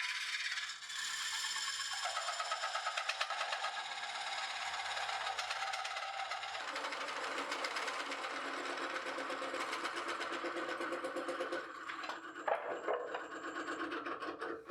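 Woodcut Bowl Saver's thin curved cutter cutting into the end grain of dried swamp kauri spinning on a Nova Neptune lathe: a continuous, rapidly pulsing scraping chatter, whose underlying tone drops lower about halfway through.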